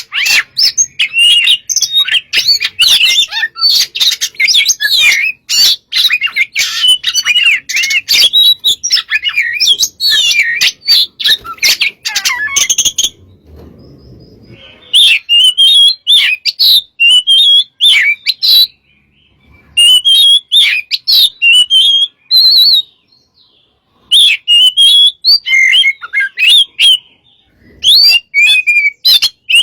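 Oriental magpie-robin (kacer) in full song: a loud, rapid, varied stream of whistled phrases and sharp chattering notes, broken by a few short pauses about halfway through and again later.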